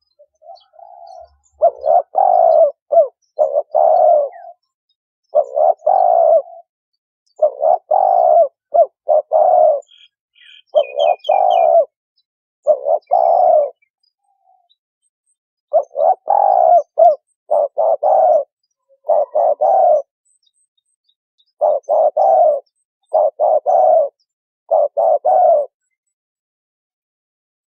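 Spotted dove cooing over and over in phrases of a few low notes separated by short pauses. A few high chirps from another small bird come in about ten seconds in.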